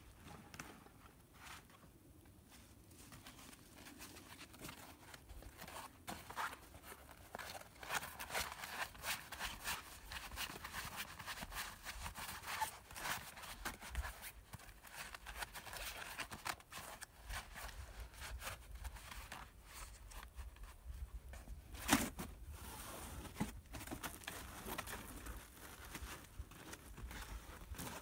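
Footsteps crunching on snowy leaf litter, with rustling and clicking as grey metal pipe sections are handled and fitted. Quiet at first and busier from about six seconds in, with one sharp knock a little past three-quarters of the way through.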